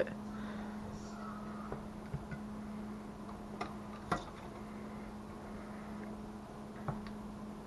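A few sharp clicks and clinks of a metal jar lifter and glass pint canning jars against the aluminium pressure canner as the jars are lifted out, the loudest about four seconds in, over a steady low hum.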